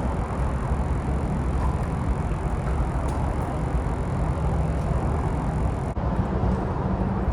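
Steady low rumble of road traffic, with a brief dip about six seconds in.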